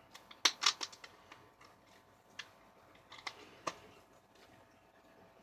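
Handling clicks and taps: a quick run of sharp clicks and crackles about half a second in, then a few single clicks spread over the next few seconds.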